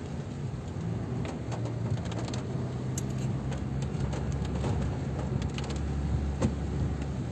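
Car running with a steady low engine hum under a haze of road noise, with scattered light clicks.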